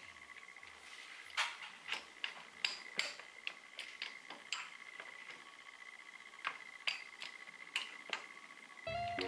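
Socket ratchet clicking in short irregular runs as a bolt on the underside of a Bajaj Dominar 400 engine is turned. Music starts near the end.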